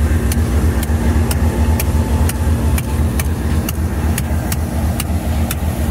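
Diesel-electric locomotive (Pakistan Railways RGE-24) idling close by: a steady low engine rumble with a steady hum over it, and a light tick about twice a second.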